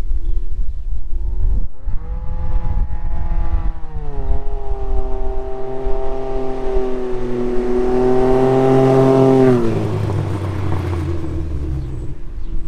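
Can-Am Ryker Rally three-wheeler with a BKD prototype exhaust on its three-cylinder engine driving past. The engine note climbs about two seconds in and grows louder as it nears. It drops sharply in pitch as it passes near the end, then fades away.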